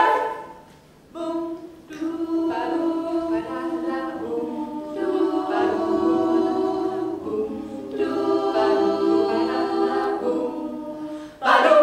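Women's a cappella choir singing. A loud chord cuts off at the start, and after about a second's pause the voices come back with soft held chords that swell loud again just before the end.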